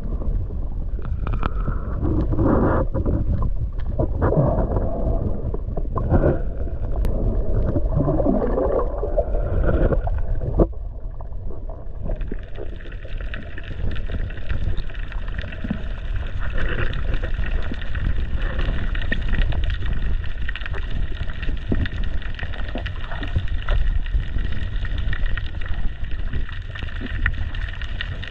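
Water and wind noise on the camera microphone, uneven at first, then changing suddenly about ten seconds in to a steadier hiss with a faint steady high tone.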